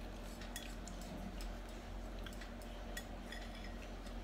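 A pink plastic spoon scraping and tapping inside a glass bowl, with a spoon in a small ice-cream cup: scattered faint light clicks.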